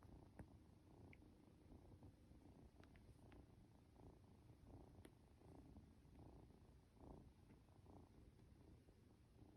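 Norwegian Forest Cat kitten purring faintly while being stroked, a low continuous rumble with a few light clicks.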